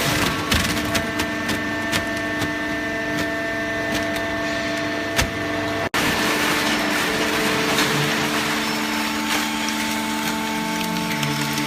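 Hydraulic cardboard baler running: a steady hum from its motor and pump, with scattered clicks and knocks. The sound drops out for an instant about six seconds in.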